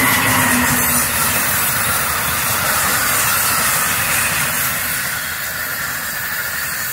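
An Amtrak ACS-64 electric locomotive and its passenger cars pass at speed, making a loud rush of wheel and air noise. The locomotive's whine drops in pitch in the first second. The rushing then slowly fades as the cars move away.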